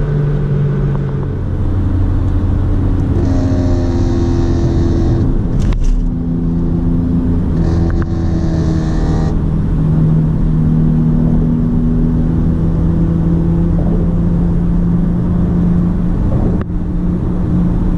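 Chevrolet Camaro cruising at freeway speed, heard from inside the cabin: a steady engine drone with road noise, the engine note shifting a few times between about two and nine seconds in.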